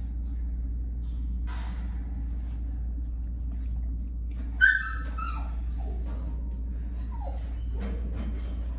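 A dog whining: a short, sharp high-pitched yelp about halfway through, then softer whimpers, one falling in pitch.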